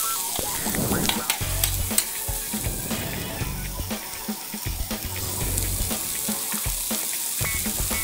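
Sliced onions sizzling in hot oil in a metal kadai, stirred with a metal spoon that clicks and scrapes against the pan.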